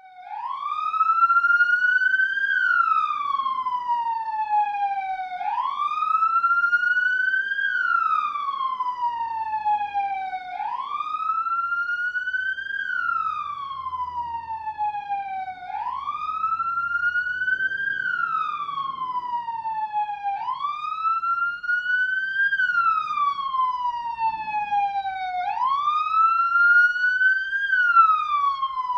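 US police car siren sounding the wail: a slow, even rise and fall in pitch, about one cycle every five seconds, repeating six times.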